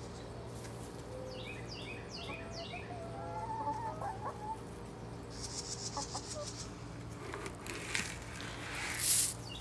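Backyard hens, Plymouth Barred Rocks among them, softly clucking as they peck at scattered feed. A quick run of short descending chirps comes about a second and a half in, then a brief high buzz midway, and a short rustle near the end is the loudest sound.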